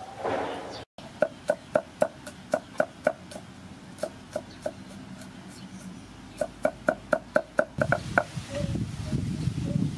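A cleaver chopping garlic on a round wooden chopping board: sharp, even knocks at about four to five a second, in two runs with a short pause between.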